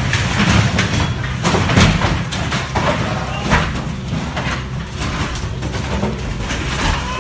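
Excavator's diesel engine running with a steady low rumble, under irregular knocks and crunches as the machine breaks into the building's front.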